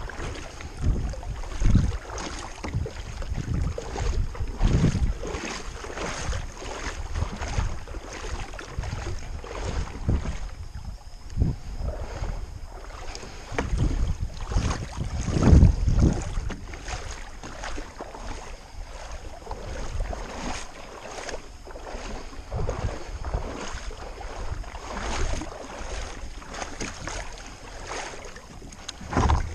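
Wind buffeting the microphone in uneven gusts over water lapping against a plastic kayak hull, with scattered light taps and knocks on the hull.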